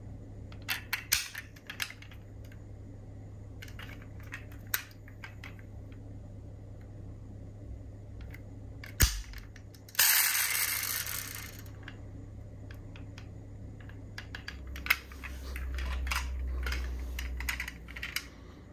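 Small clicks and taps of diecast metal model cars being handled, with a brief rushing noise about ten seconds in and a low rumble near the end.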